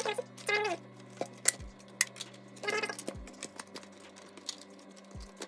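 Sharp plastic clicks and creaks as the clipped plastic housing of a Honda Civic instrument cluster is pried apart by hand, with a few short squeals that fall in pitch.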